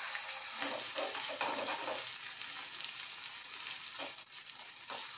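Chopped garlic and ginger sizzling in hot ghee in a small tadka pan, with a spoon stirring and now and then knocking against the pan.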